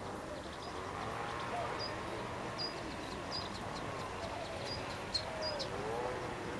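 Goosander ducklings giving short, high peeps, repeated every half second to a second, over a steady outdoor hiss, with a few fainter wavering lower calls.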